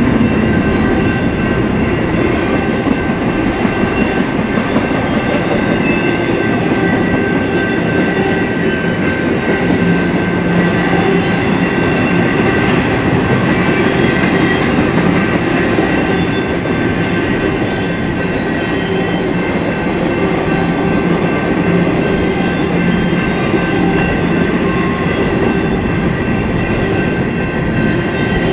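Intermodal freight train rolling past at steady speed: a continuous rumble of wheels on rail with some clickety-clack, and a few thin, steady high-pitched tones over it.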